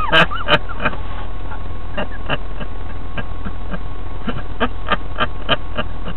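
A man laughing in short breathy bursts, a quick run of them in the second half, over a steady low hum inside a car.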